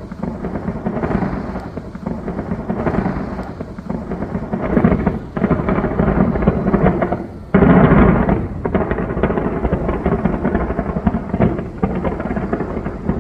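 Fireworks display going off in a rapid, continuous barrage, the booms running together into a rolling, thunder-like rumble with crackle. A sharper, louder volley hits about seven and a half seconds in.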